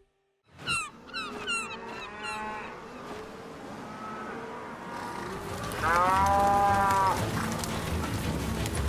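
Cattle mooing, with one long, loud moo about six seconds in over a low rumble. A run of short, high chirping calls comes near the start.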